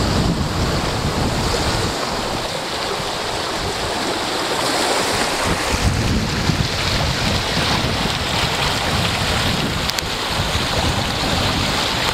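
Wind buffeting the microphone over the steady rush of water along a sailboat's hull, sailing in a 15–20 knot breeze. The low buffeting eases for a moment about two seconds in.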